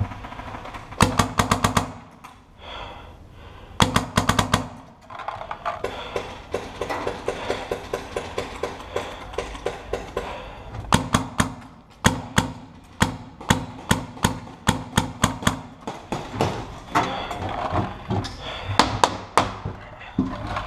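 Paintball markers firing rapid strings of shots, about eight to ten a second, in several volleys with short pauses between.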